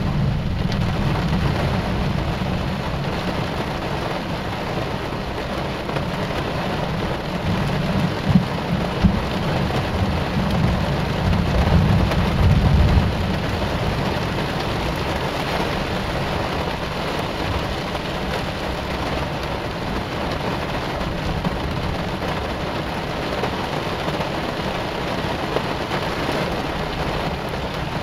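Heavy rain falling steadily, under low thunder rumbling that grows loudest between about eight and thirteen seconds in.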